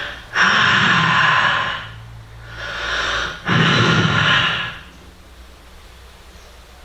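A man's exaggerated, theatrical snoring: two loud snores with a softer breath between them, stopping about five seconds in.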